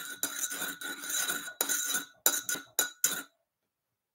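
Clinking and rattling from something being handled, in a run of short bursts with a faint ringing tone through them, cutting off a little over three seconds in.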